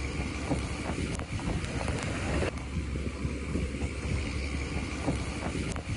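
Storm wind buffeting the microphone: a steady low rumble under a continuous rushing hiss, with a few faint knocks.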